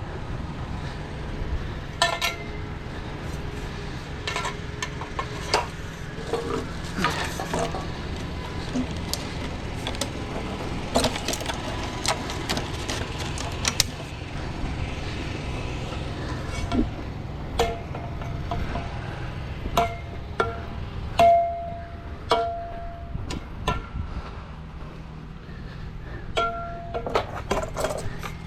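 An engine running steadily, with repeated sharp metallic clinks and clanks that ring briefly, some in quick runs about 20 seconds in and near the end.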